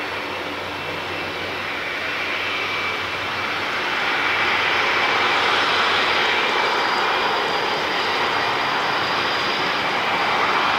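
Boeing 747-400's four Rolls-Royce RB211 turbofans running at taxi power, a steady jet rush with a faint high whine. It grows louder from about three to six seconds in, as the jet swings round, and then holds.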